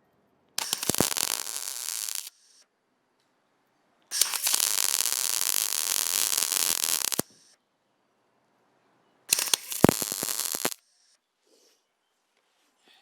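MIG welder on a low setting, welding shut bolt holes in a sheet-metal car hood over stick-on ceramic backing tabs. It runs in three crackling bursts, the middle one the longest at about three seconds, with a few sharp pops in the first and last.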